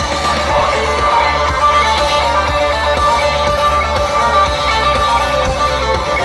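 Instrumental rock music led by guitar, with a steady low bass underneath.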